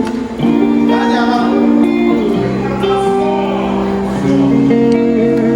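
Live band music at a sound check: held chords that change about every two seconds, with guitar.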